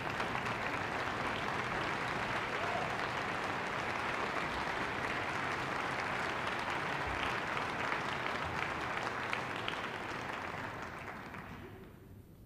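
Audience applauding in a concert hall, a dense steady clapping that dies away near the end.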